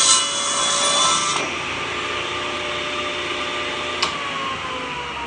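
Table saw ripping the edge off a long board, the cut ending about a second and a half in; the saw then runs free, and after a click about four seconds in its whine starts falling as the blade spins down.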